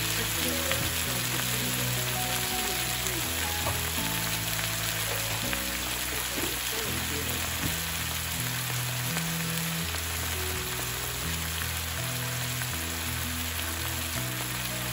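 Onion, garlic and ginger sizzling steadily in soy sauce and olive oil in a frying pan, with no stirring. Soft background music with low sustained notes plays underneath.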